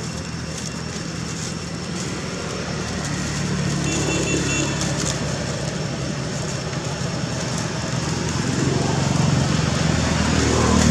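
Low rumble of road traffic, growing louder about four seconds in and again near the end.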